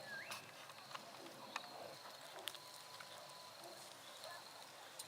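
Faint outdoor ambience: a high insect trill that comes and goes, a short rising chirp at the very start, and scattered sharp clicks.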